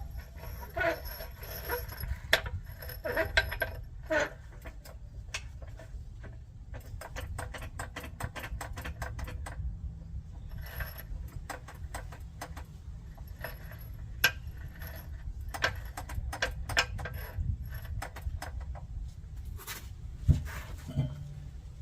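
Irregular metallic clicks, clinks and knocks of hardware and tools being handled while a steel skid plate and its U-bolts are fitted under a van, over a steady low rumble.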